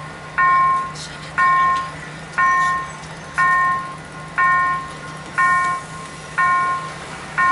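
Level crossing warning bell ringing steadily, one strike about every second, each ring fading before the next. It signals that the crossing is closed for an approaching train.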